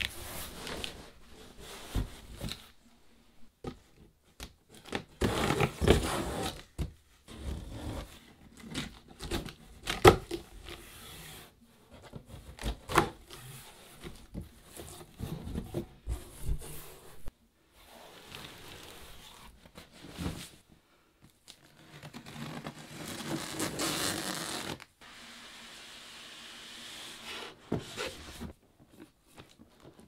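Cardboard shipping box being opened by hand: packing tape tearing, flaps pulled open and cardboard scraping, in a string of irregular rustles and rips. A longer steady scrape comes a little over three-quarters of the way through, as the boxed product is drawn out.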